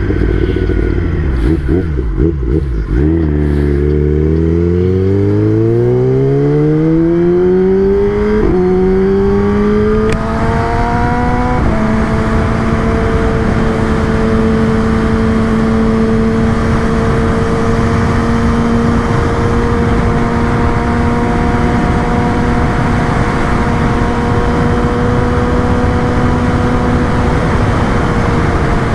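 Kawasaki ZX-10R's inline-four engine, heard from the rider's seat. It slows to its lowest pitch about three seconds in, then rises through the gears with breaks at a few upshifts. From about twelve seconds in it runs at a steady cruising pitch with steady wind noise.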